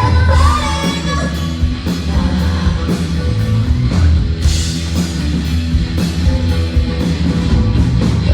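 A live rock band, drums, bass and guitar, playing loudly through a passage with no clear sung line.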